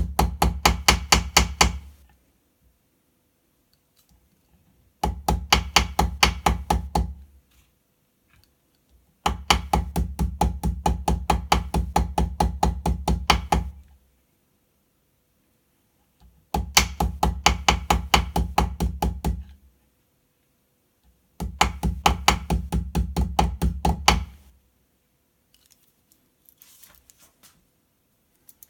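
Ball-peen hammer tapping a bent blade of a Victorinox Deluxe Angler pocketknife against a small piece of steel to straighten it. The taps are quick and even, about six a second, and come in five runs of a few seconds each with short pauses between them.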